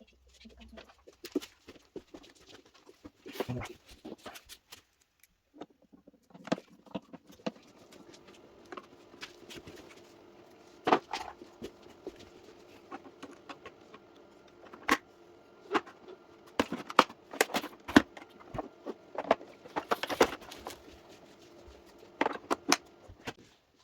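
Irregular plastic clicks and knocks of the robot vacuum's casing and parts being handled and fitted back together, over a faint steady hum that sets in about seven seconds in.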